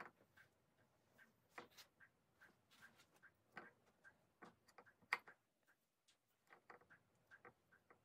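Faint, irregular clicks and light taps of a kitchen knife cutting boiled potatoes held in the hand, the chunks dropping into a bowl.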